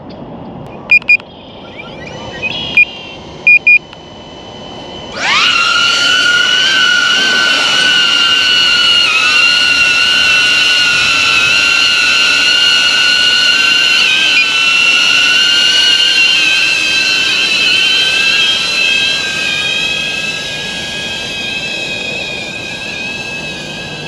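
A few short electronic beeps, then about five seconds in the DJI Avata cinewhoop's ducted propellers spin up abruptly into a steady high-pitched whine that grows somewhat fainter over the last few seconds.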